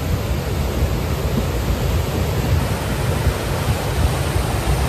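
The Beas river in spate: a swollen, muddy torrent rushing past in a steady, dense rush of water noise with a heavy low rumble.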